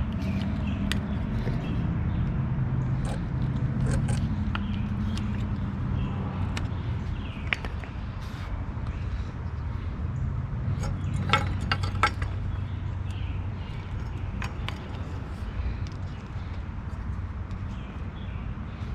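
Scattered metallic clicks and clinks of small parts and hand tools being handled, with a quick cluster of clinks about halfway through, over a steady low hum.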